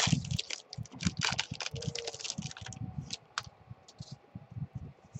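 Foil trading-card pack wrapper being torn open and crinkled by hand, a quick run of crackles that thins out after about three seconds.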